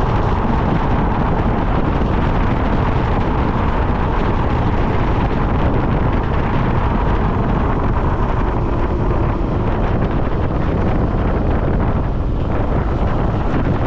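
Steady wind rushing over the microphone with a constant rumble underneath, as on a moving vehicle.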